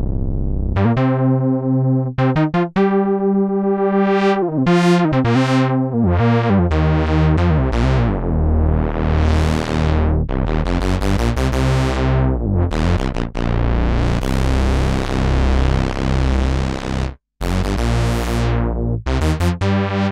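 Modal Electronics Cobalt 8X virtual-analog synthesizer playing a factory preset, recorded dry. Sustained chords sound over repeated low bass notes. The filter is swept open and closed by hand, so the brightness swells and fades again and again. The sound breaks off very briefly about seventeen seconds in.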